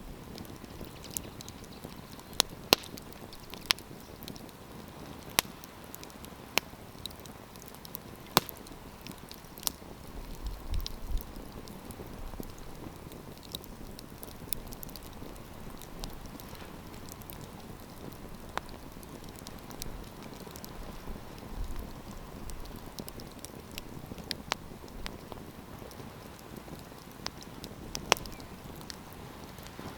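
Wood campfire crackling: a steady soft hiss with sharp, irregular pops and snaps every second or so.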